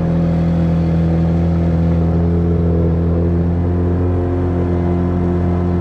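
Outboard motor with a water-jet unit running at a steady cruising speed, driving an inflatable PVC boat, its engine note even and unchanging.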